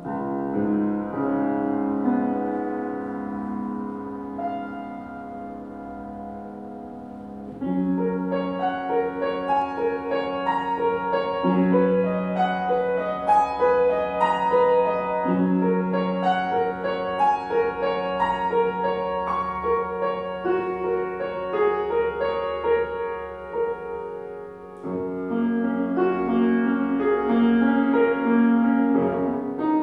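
Solo piano playing a flowing piece. It is softer for the first several seconds, grows louder and busier about seven and a half seconds in, eases off briefly near the end, then swells again.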